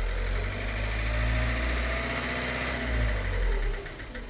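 Ford Connect diesel engine held at about 1500 rpm, then switched off about four seconds in and running down. The throttle body is off, so shutting down at revs brings out the knock, which the mechanic diagnoses as a piston knocking in one cylinder.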